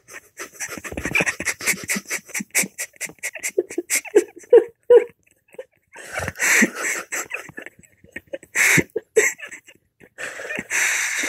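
A pit bull's breathy snorts and grunts as it squirms on its back on a bed. A quick run of short sounds comes first, then a few longer, louder ones.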